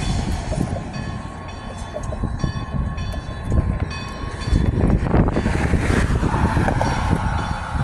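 Steam locomotive approaching with its train, a low rumble throughout, with its whistle blowing in steady tones.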